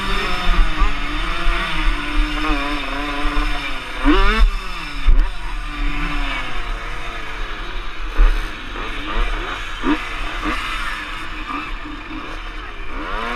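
Vintage motocross motorcycle engine revving up and down as the bike rides off the dirt track and slows, with sharp throttle blips about four seconds in and again around ten seconds. Other motocross bikes' engines rev around it as it rolls to a stop among them, with wind rumble on the microphone.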